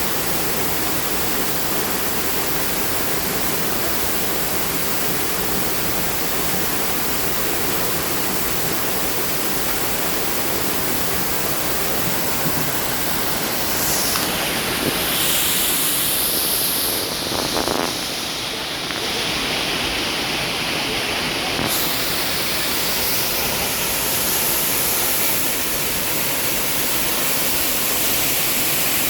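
Waterfall: a steady rush of falling water, even across high and low, with the high hiss shifting for several seconds around the middle.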